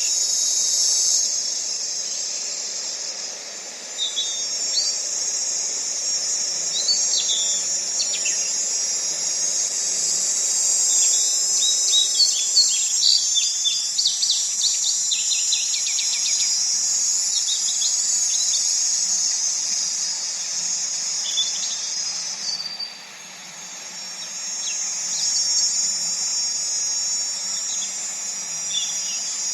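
Steady high-pitched insect chorus with scattered short bird chirps, busiest in the middle. The insect sound breaks off for about a second roughly three-quarters of the way through, then resumes.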